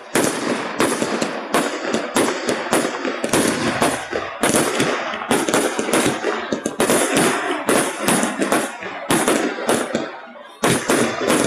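Fireworks display: a rapid, unbroken barrage of bangs and crackles from shells bursting overhead, easing briefly about ten seconds in before picking up again. Heavily compressed phone-microphone recording.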